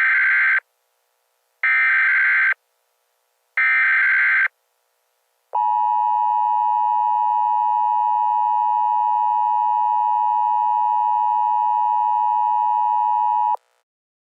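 Emergency Alert System SAME header: three bursts of digital data tones, each about a second long and a second apart. Then the steady two-tone EAS attention signal sounds for about eight seconds and cuts off suddenly, announcing a new emergency alert.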